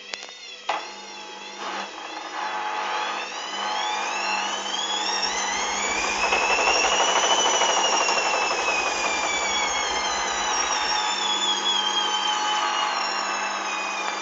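Hoover Dynamic washing machine's drum motor speeding up with a rising whine and a low rumble, peaking about halfway through, then slowly winding down, after a few clicks at the start.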